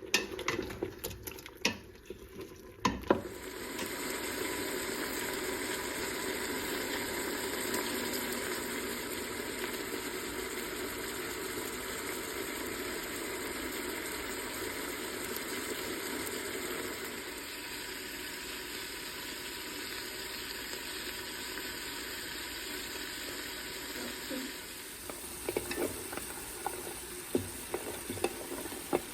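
Food frying in hot oil in an Instant Pot: a few clatters, then a steady sizzle starts about three seconds in and eases a little past the middle, with utensil clinks and stirring near the end.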